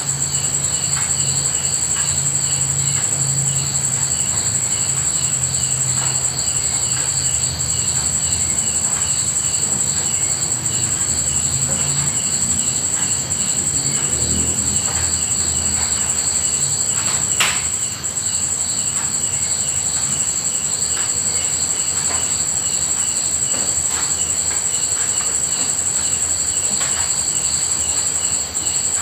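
Insects trilling, a steady high-pitched buzz with quicker pulsing chirps beneath it. A low hum runs through the first half, and there is one sharp click about seventeen seconds in.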